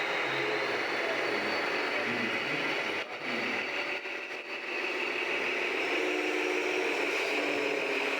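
Scale RC trucks running with a steady engine-like sound, which drops briefly about three seconds in and then picks up again.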